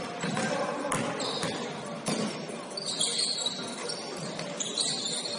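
Basketball bouncing on a gym floor during a game, a few sharp knocks, with short high squeaks and background voices in a large echoing hall.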